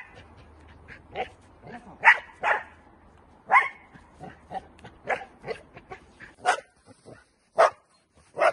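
Young Dutch Shepherd barking a string of short, sharp barks, irregularly spaced at about one or two a second. This is guard barking at a decoy's object in protection training.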